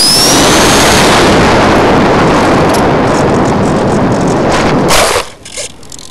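Loud wind buffeting and rumble on a small mounted camera's microphone as it moves fast low over grass, with a thin rising whistle in the first second. A few knocks come about five seconds in, then the noise drops away sharply to a low steady hiss as the movement stops in the grass.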